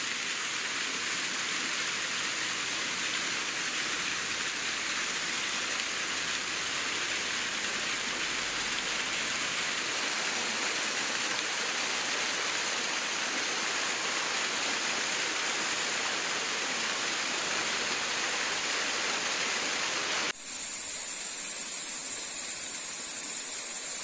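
Kariyose Falls, a small waterfall, splashing into its plunge pool: a steady rush of falling water. About twenty seconds in, the sound cuts suddenly to a quieter rush of water with a steady high-pitched tone over it.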